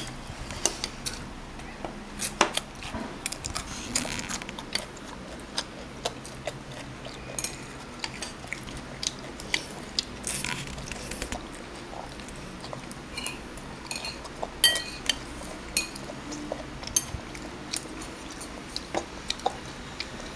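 Small child eating noodles from a bowl: spoon and fork clicking and scraping against the bowl in short, irregular knocks, with bursts of noodle slurping and chewing between them.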